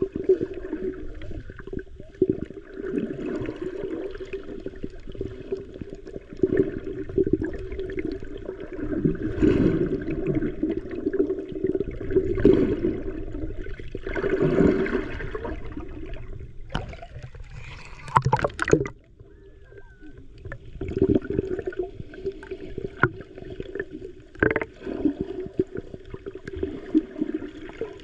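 Muffled underwater water noise, sloshing and gurgling, over a steady low hum with scattered clicks. A louder burst comes about 18 seconds in.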